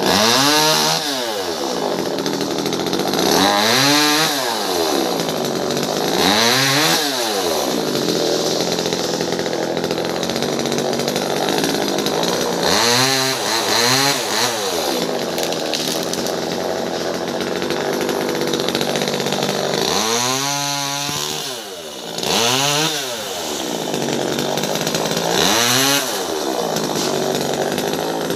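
Top-handle two-stroke chainsaw idling and revved up in short bursts about eight times, its pitch rising and falling back to idle each time, as it cuts tree branches.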